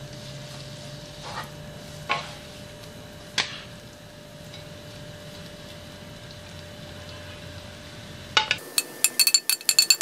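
Wooden spatula scraping julienned vegetables off a glass plate into a frying pan, with a few sharp knocks against the plate and pan in the first few seconds. Near the end, a quick run of rapid clicks and clatter.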